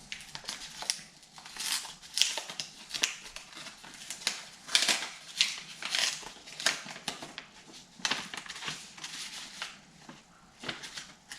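Mail being opened by hand: irregular rustling, crinkling and tearing of paper packaging.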